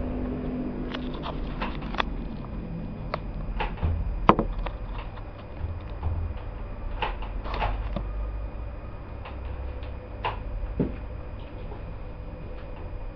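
Irregular light knocks and clicks over a low rumble, the loudest knock a little past four seconds in: handling noise from a camera being repositioned and a person moving about a small room.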